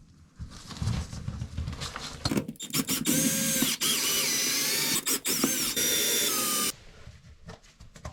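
Power drill running for about four seconds, its pitch wavering as it bites, then stopping abruptly; a couple of seconds of irregular knocking and handling noise come before it.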